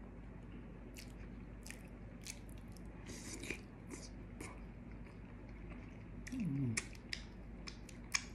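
A person chewing and smacking their lips while eating, with scattered wet mouth clicks. There is a short hummed "mm" about six and a half seconds in.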